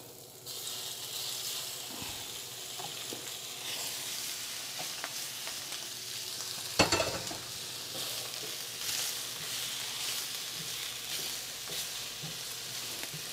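Spiced shrimp sizzling steadily in hot coconut oil in a skillet, starting about half a second in. A single sharp knock comes about seven seconds in.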